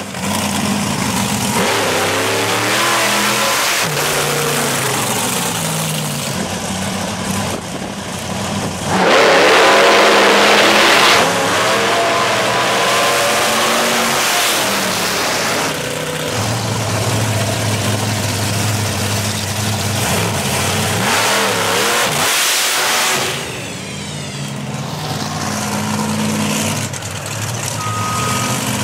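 Monster truck engines idling and revving, the pitch climbing and falling with the throttle. About nine seconds in a truck accelerates hard close by, the loudest part, for about two seconds.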